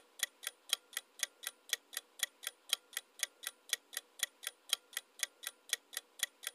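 Clock-ticking sound effect for a quiz countdown timer: even, sharp ticks at about four a second.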